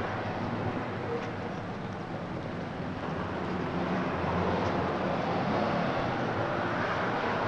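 Steady traffic rumble, a constant noisy background with no distinct events.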